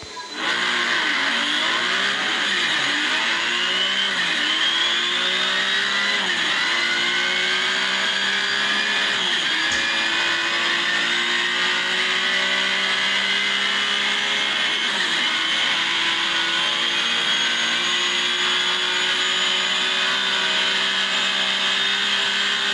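Simulated sports-car engine sound from a phone speedometer app, accelerating hard through the gears. The pitch climbs and drops at each shift, the shifts come further and further apart, and after the last one it holds a high, nearly steady pitch at top speed.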